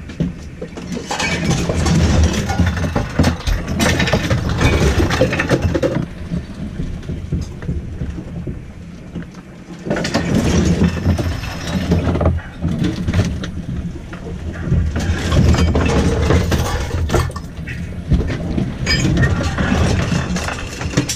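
Monohull sailboat aground in breaking surf, heard from inside the cabin: the hull is struck and rocked in surges every few seconds, with loose gear clattering, over a steady low drone.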